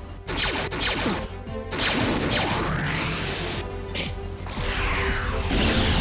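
Mecha battle sound effects over background music: sci-fi whooshes and impacts, with quick falling pitch sweeps in the first second and a long rising sweep a couple of seconds in.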